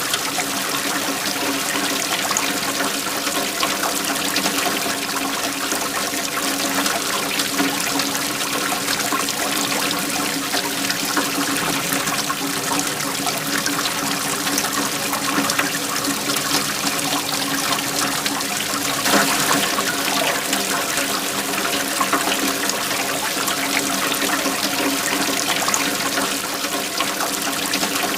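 Flowing waterfall: a steady rush of falling water, with a brief louder surge about two-thirds of the way through.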